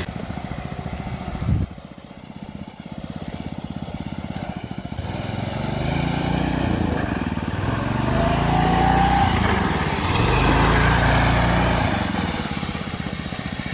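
Small engine of a homemade go-kart running under load as the kart drives. Its note rises and falls with speed and grows louder through the middle as the kart comes closer.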